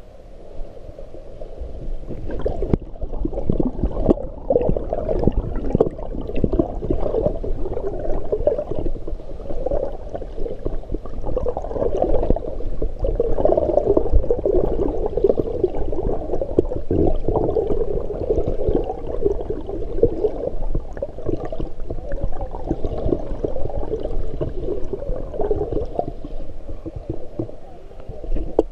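A swimmer's arm strokes and kicks heard underwater through a waterproof camera housing: continuous muffled churning and bubbling with many small pops and splashes, building up over the first couple of seconds.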